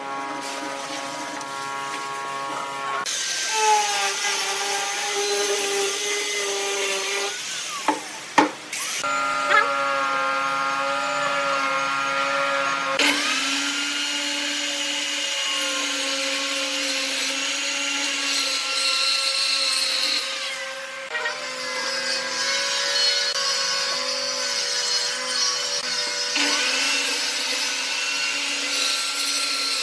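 Power tools cutting wood: from about a third of the way in, a Dekton circular saw runs steadily as it trims the edge of a pine louvered panel, with a brief dip near two-thirds of the way. Before that, shorter runs of a power tool with a shifting pitch and a couple of sharp knocks.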